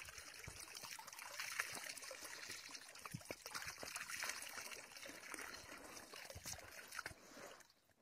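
Water splashing and trickling from a garden hose into a shallow paddling pool as a dog snaps at the stream, with scattered sharper splashes; it dies down near the end.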